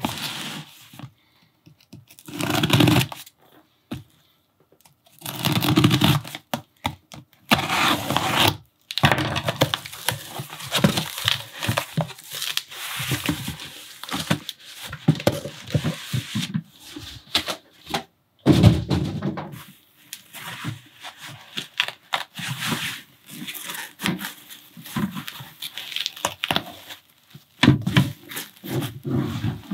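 Hands unpacking a cardboard box: cardboard flaps and foam packing sheets scraping and rustling, broken by several dull thumps. Bubble wrap crinkles as it is handled near the end.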